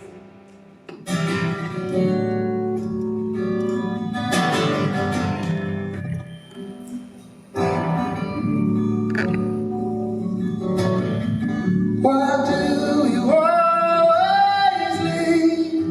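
Live acoustic guitar strummed in repeated chords, coming back in after a brief pause about a second in; in the last few seconds a voice comes in singing over it.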